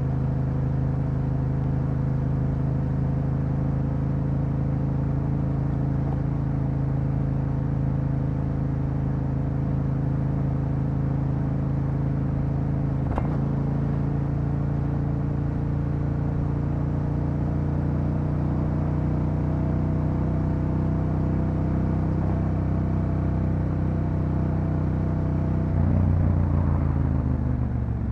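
Yamaha Ténéré 700's parallel-twin engine through an Akrapovič exhaust, running at a steady, unchanging pitch for most of the time, then opened up and louder near the end.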